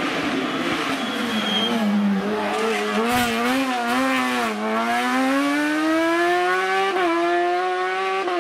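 Hillclimb race car engine at high revs. Its note drops as the car brakes into a bend and wavers as the throttle is worked through the corner. It then climbs steadily as the car accelerates away, with a brief break in the rising note about seven seconds in.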